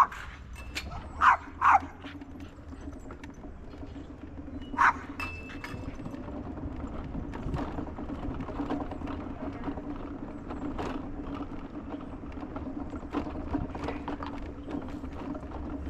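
A dog barks several times, sharp single barks in the first five seconds, the last about five seconds in. A steady low hum from a motor or engine runs underneath from about a second and a half in.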